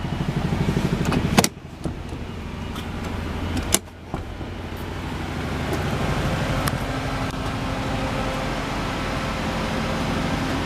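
Honda Life 660 cc kei car engine idling with a steady, rhythmic pulse. Two sharp knocks sound about a second and a half in and again about four seconds in, after which the engine note is a little louder.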